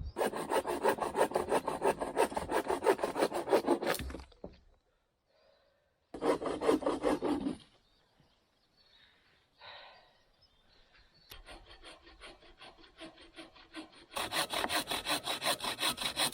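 Hand saw cutting through wood in rapid back-and-forth strokes, in several bouts with short pauses between, the last bout starting quieter and getting louder near the end.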